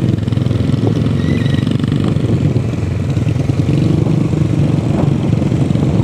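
Motorcycle engines running steadily while riding along, a continuous even drone.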